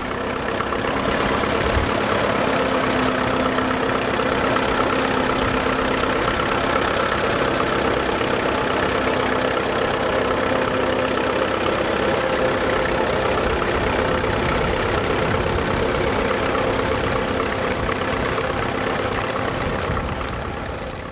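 Standard Fordson tractor's engine running steadily while pulling a two-furrow trailed plough.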